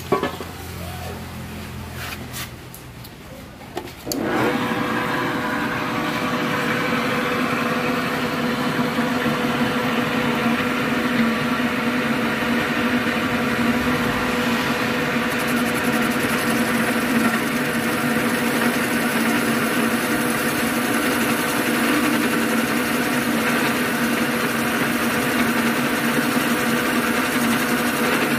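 A few clicks, then about four seconds in a cylinder boring machine starts and runs steadily, its boring bar turning and cutting inside a motorcycle cylinder bore to rebore it.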